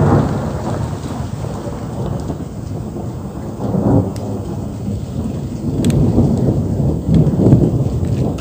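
Continuous rolling thunder from a close thunderstorm, a low rumble that swells at the start, again about four seconds in, and once more near the end.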